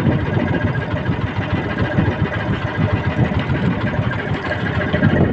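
Small engine running at a steady idle on an outrigger fishing boat.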